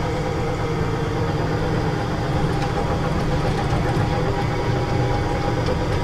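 A tractor-style amusement ride car moving steadily along its track: a continuous mechanical hum over a low rumble.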